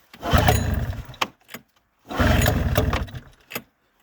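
Two pull-start attempts on a 2000 Arctic Cat ZL440 snowmobile's straight-piped two-stroke twin, each a loud burst of about a second of the engine cranking and firing in quick pulses, then dying without catching.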